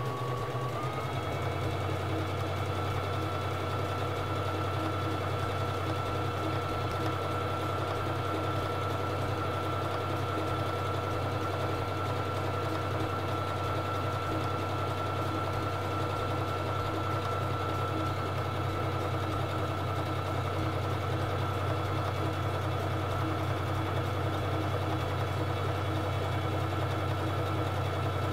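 Singer Fashion Mate 3333 electric sewing machine running at a steady speed, stitching a honeycomb decorative stitch. Its motor whine rises as it comes up to speed about a second in, then holds even.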